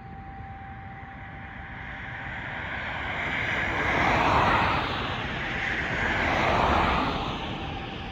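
School heating system howling: a rushing noise that swells up twice, loudest about four seconds in and again near seven seconds, over a steady tone.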